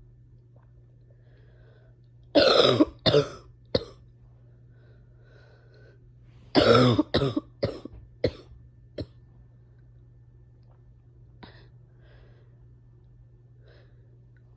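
A person in a coughing fit: two bouts of coughing, the first about two seconds in with three coughs, the second a few seconds later with a long cough followed by several shorter ones. A steady low hum runs underneath.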